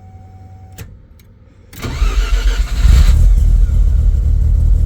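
Turbocharged Mazda RX-7 engine cranking and catching about two seconds in, then running steadily, after a faint steady whine and a click. It is started with a post-crank idle setting that the owner judges not enough, because the bypass air control valve is blocked off.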